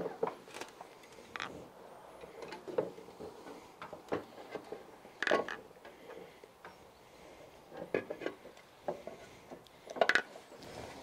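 Irregular knocks, clicks and scraping of a SIP Performance rear shock absorber being pushed up into its mounts from below on a Vespa GTS 300 scooter, with metal parts bumping against each other.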